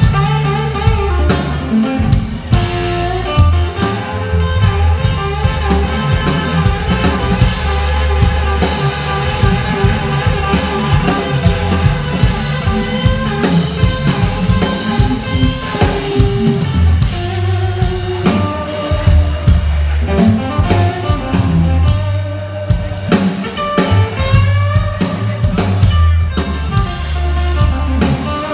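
Live blues band playing, with an electric guitar carrying long held lead notes, some of them bent, over drum kit and bass.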